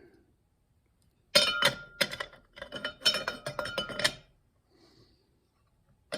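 Steel parts of a 700R4 automatic transmission clinking and ringing against each other as they are handled and stacked into the clutch assembly, in a quick run of clinks from just over a second in to about four seconds in, with more starting near the end.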